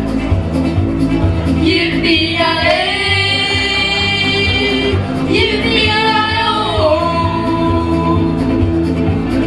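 Boys singing through a PA over an instrumental backing. Two long held notes each start with an upward slide, about two and five seconds in.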